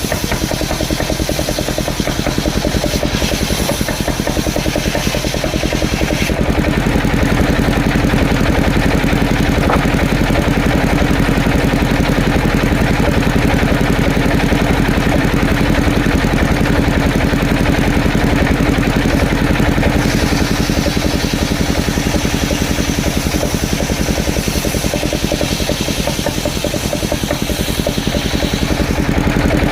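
Engine of a wood-cutting saw running steadily at an even speed. Its tone shifts slightly about six seconds in.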